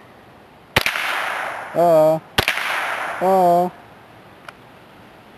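Two shots from a Remington 597 semi-automatic .22 rifle, about a second and a half apart, each a sharp crack followed by about a second of echo.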